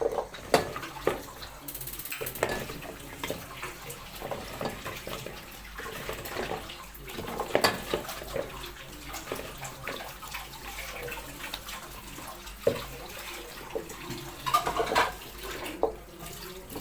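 Water running from a kitchen tap into a sink, with many short knocks and clatters of things being handled and rinsed under it.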